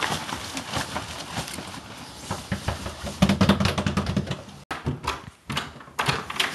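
Hurried footsteps and rustling, as of people running through dry leaves and brush, with heavier thudding steps about three seconds in. The sound breaks off abruptly a little before five seconds, and scattered knocks and rustles follow.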